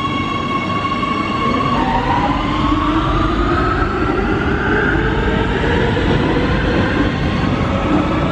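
Metro train pulling out of an underground station. A steady electric tone gives way about two seconds in to the whine of the traction motors, rising in pitch as the train accelerates, over a growing rumble.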